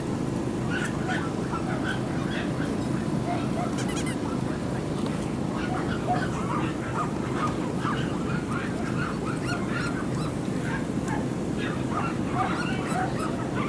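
Dogs yapping and barking in many short, scattered yelps over a steady low background rumble.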